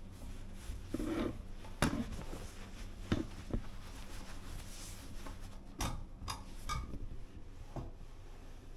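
A cloth towel being worked into a tight gap at a shelf edge beside a metal hanger rail: rubbing of cloth with about eight scattered light knocks and clicks, over a steady low hum.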